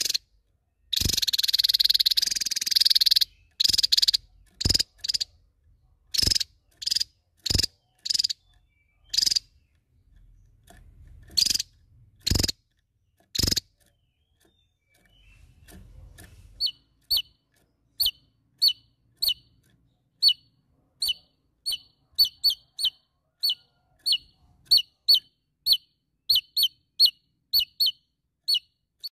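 Javan tesia calling. It opens with a dense harsh burst of notes about a second in, then gives loud, sharp single notes spaced about a second apart. After a short pause, from about halfway, it settles into a steady run of short high chips, two or three a second.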